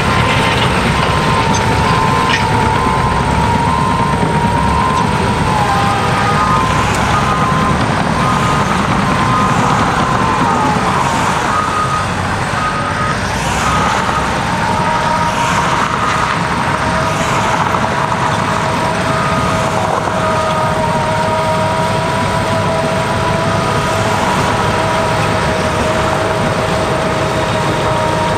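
Cat D6K2 bulldozer working, its diesel engine running steadily under load with a whine that drifts slowly in pitch. A backup alarm beeps about once a second throughout.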